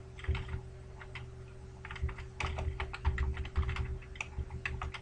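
Computer keyboard being typed on in quick, irregular runs of keystrokes, with a short pause about a second in. A faint steady hum lies underneath.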